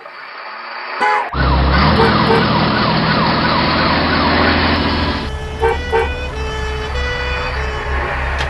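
An emergency-vehicle siren sound effect with a fast up-and-down wail over a low engine rumble, starting about a second in. The siren drops out about halfway, while the rumble and a few short blips go on.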